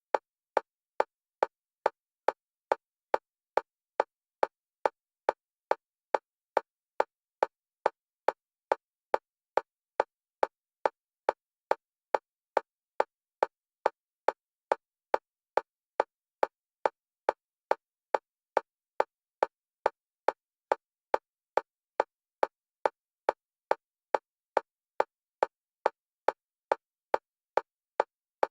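Synthetic metronome clicks at one pitch, evenly spaced at about two a second, alternating between the left and right stereo channels: an EMDR bilateral-stimulation beat.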